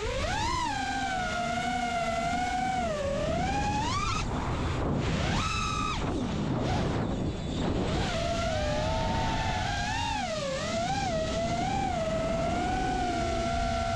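FPV quadcopter's brushless motors and propellers whining as heard from the camera on the quad, the pitch sliding up and down with the throttle. The pitch jumps sharply a couple of times around four to six seconds in, followed by a stretch of rushing wind noise before the whine settles again.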